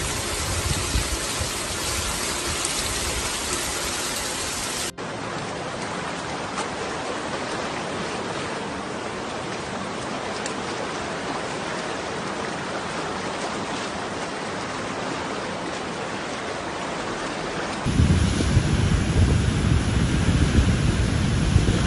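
Rushing floodwater, a steady noisy rush that changes abruptly twice where clips are cut together. In the last few seconds a flash-flood surge makes the rush louder and deeper.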